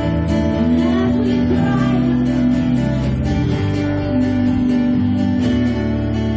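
Live church band playing worship music, guitar to the fore, with long held notes over a steady bass line.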